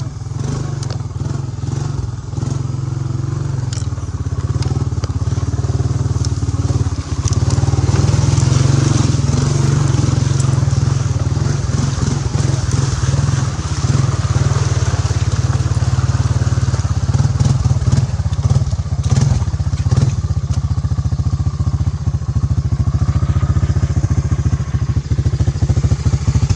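ATV engine running steadily under load through mud, getting louder about seven seconds in. Scattered clicks and knocks of brush and mud hitting the machine run through it.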